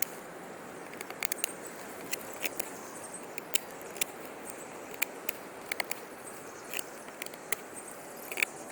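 Victorinox Soldier pocketknife, with a partly serrated blade, whittling a point on a stick: irregular sharp clicks and scrapes as shavings come off, over a steady background hiss.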